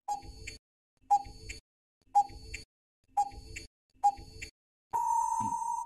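Quiz countdown-timer sound effect: five clock-like ticks about a second apart, then a steady beep lasting almost a second that marks the end of the answer time.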